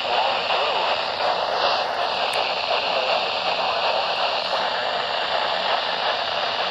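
Weather radio receiver hissing with steady static on a weak signal, a broadcast voice barely audible underneath.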